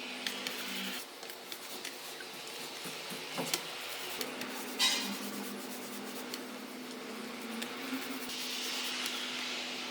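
Soft rubbing and scattered light clicks of things being handled, with one brief hissing scrape about halfway, over a steady low hum.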